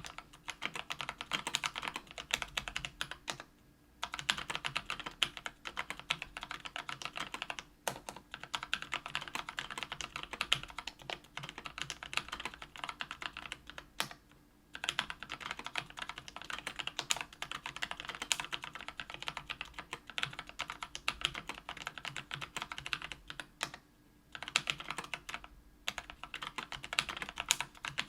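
Continuous rapid typing on a KBDfans Tofu 65% aluminium keyboard with Kailh Brown 50g tactile switches lubed with Krytox 205g0 and lubed stabilizers. The keystrokes come in long runs broken by a few short pauses, at about four, eight, fourteen and twenty-four seconds in.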